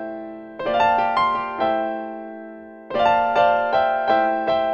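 Solo piano improvisation in a slow, gentle style: struck chords and single melody notes, a held chord ringing out and fading for over a second before a new phrase starts about three seconds in.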